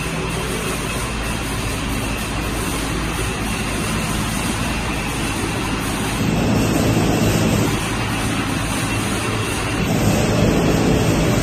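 Steady din of a PET bottle sorting line: conveyor belts and drive motors running, a low hum under a wash of machine noise with a faint high whine. It steps louder about six seconds in, eases back, then louder again near the end.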